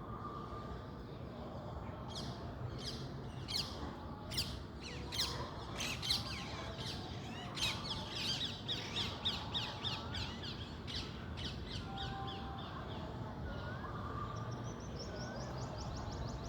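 Birds calling: many short, sharp calls in quick succession from about two seconds in until about twelve seconds, a few thin whistled notes, and a quick run of high chirps near the end, over a steady low rumble.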